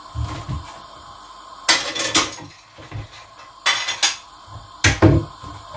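Ceramic plates and kitchenware clattering and clinking as they are lifted out of a dish drainer, in several sharp bursts after a few dull knocks.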